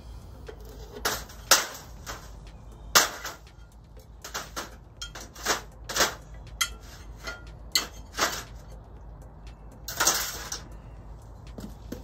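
A string of sharp metal knocks and clanks, about a dozen spread out, as a hot ingot mould held in tongs is knocked on a board to drop the ingot out, then the mould and the tongs are set down among steel hand tools. The hardest knocks come about one and a half seconds and three seconds in, with a longer rattle near the end.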